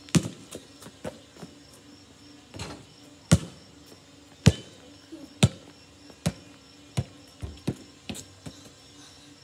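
A basketball bouncing on hard ground: a few separate bounces, then a slow dribble of about one bounce a second through the second half. Faint insects chirr steadily underneath.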